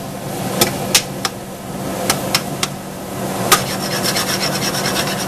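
Metal spoon scraping and stirring cooked onions around the bottom of a stainless steel pot, with sharp clinks of the spoon against the pot every second or so, over a steady low hum.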